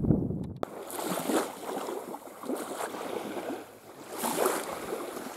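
Shallow seawater sloshing and lapping in small surges about every second and a half, after a short low rumble at the start that cuts off suddenly.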